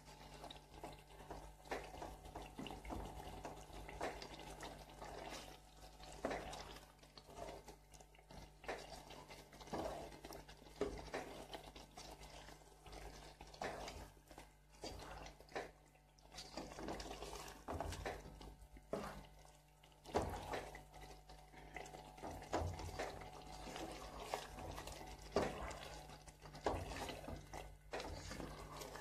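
A spatula stirring and scraping chicken pieces in a thick, wet tomato-yogurt gravy in a nonstick pan, with irregular squelching strokes. This is the karahi being fried down (bhuna) with continuous stirring so the masala does not stick to the bottom.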